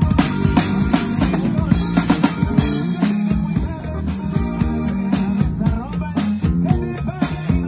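A drum kit played in time with bass drum, snare and cymbal hits, over music that also carries a bass line and other pitched instruments.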